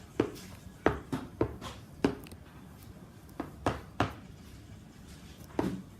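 Spoons knocking against bowls while stirring a glue and shaving-cream slime mixture: a series of sharp, irregular knocks.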